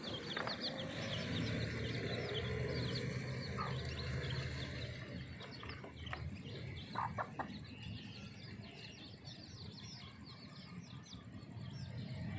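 A brood of young chicks peeping continuously, many short high falling peeps overlapping, with a few lower calls from the mother hen. A low background rumble runs under the first half.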